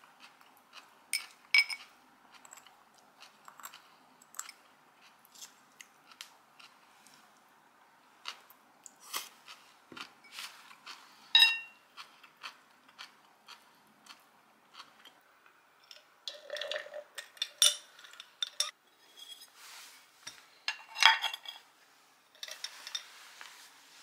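Metal spoon and fork clinking and scraping against matte Hasami Porcelain bowls during a meal, with soft chewing and crunching between. Several clinks ring briefly, the sharpest about 11 seconds in and again around 21 seconds, with a busier run of clatter around 16 to 18 seconds.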